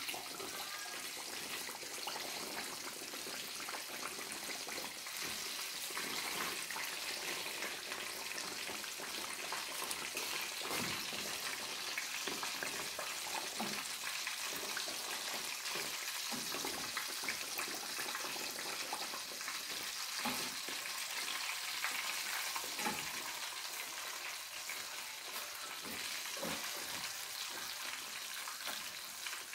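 Breaded pork cutlets (tonkatsu) deep-frying in oil in a pan: a steady sizzle and crackle, with a few light knocks of metal tongs as the cutlets are turned.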